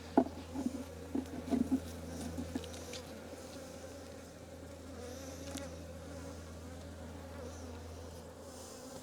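Honey bees buzzing around an open hive in a steady hum. A few light knocks come in the first couple of seconds.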